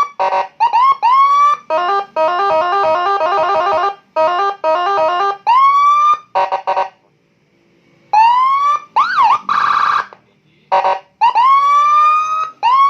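Custom Whelen-style patwal escort siren cycling through its tones: repeated short rising whoop chirps, a fast stepping multi-note telolet tune about two seconds in, then after a brief pause a long rising whoop, a quick warble and a buzzing horn tone, followed by more chirps.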